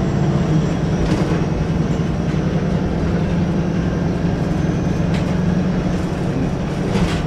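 Wright Pulsar 2 single-deck bus on a VDL SB200 chassis under way, heard from inside the saloon: a steady low engine drone with road noise, and a few light rattles.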